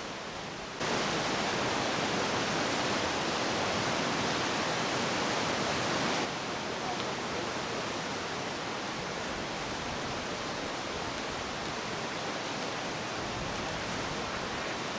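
Steady rushing noise, with no distinct events; it steps up abruptly about a second in and drops back about six seconds in.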